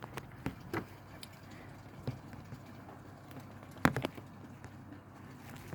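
Rain dripping, scattered irregular light taps and clicks over a faint steady hiss, with one louder knock about four seconds in.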